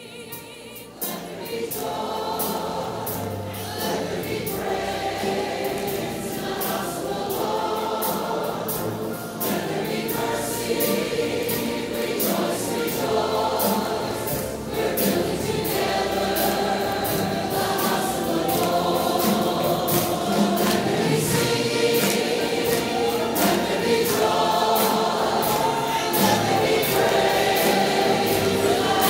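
Gospel choir singing over instrumental backing with a steady beat, fading in at the start.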